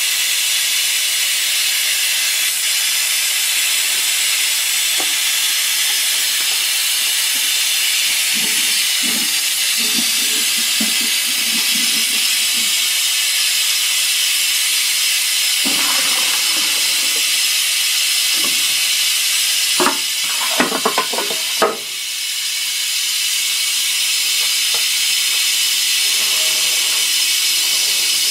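Compressed air hissing steadily out of an air compressor tank's open drain, carrying out condensate from a tank that has not been drained in years. A few short knocks come about two thirds of the way through, and the hiss dips briefly before building back up.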